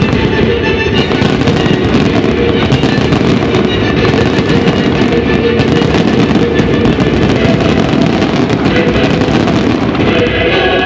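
Aerial firework shells bursting in a dense, continuous barrage of bangs and crackle, with loud music playing along.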